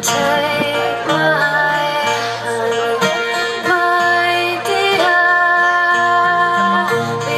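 Live folk music played through a festival PA: a woman singing over acoustic guitar and other plucked strings, heard from among the open-air audience.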